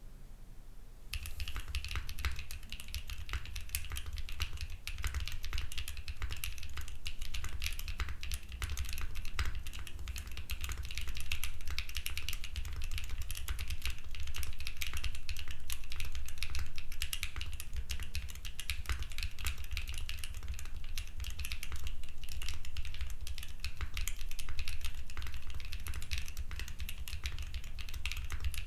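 Arc60 custom mechanical keyboard with Jerzzi Paradox linear switches, GMK Monarch keycaps and no foam, typed on quickly and continuously. The dense key clacking starts about a second in.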